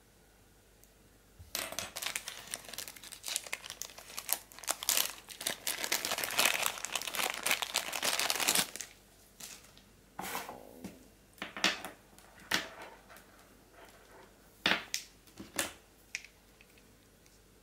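Clear plastic packaging bag crinkling as it is handled and opened. The crinkling is dense for about seven seconds, starting about a second and a half in, then thins to a few separate sharp crackles.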